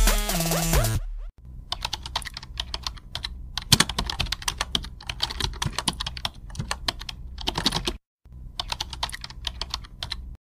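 A short stretch of electronic music stops about a second in. It gives way to a rapid, irregular patter of computer-keyboard typing clicks, a typing sound effect that pauses briefly near 8 seconds and then resumes.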